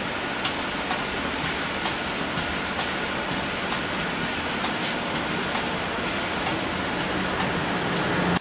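Steady rushing hiss from a pipe pressure-testing rig, with faint scattered ticks.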